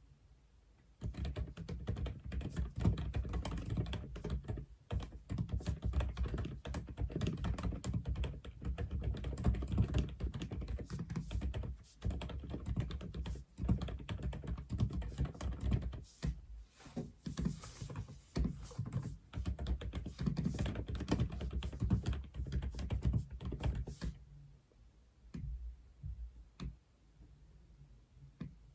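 Aula F87 mechanical keyboard being typed on: after about a second, a fast, continuous run of keystrokes. Near the end it thins out to a few scattered key presses.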